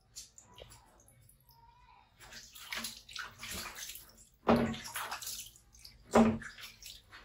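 Water splashing and sloshing as a baby monkey is washed by hand on a wet tiled floor. Two louder splashes come near the end, under two seconds apart.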